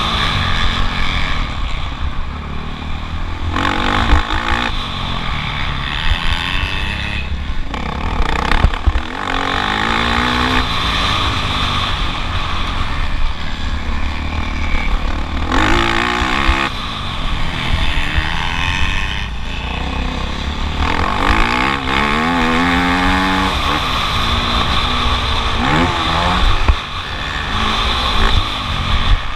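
Motocross bike engine revving hard and dropping back again and again, its pitch sweeping up several times as it accelerates out of corners, with a dense low rumble underneath.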